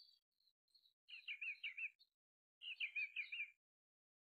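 A songbird singing: two short phrases of rapid warbled notes, about a second in and again just before three seconds, with a few short high chirps before the first.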